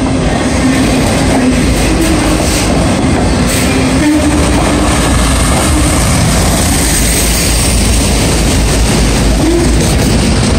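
Autorack freight cars rolling past close by: a loud, steady rumble of steel wheels on the rails, with a faint wavering tone running through it.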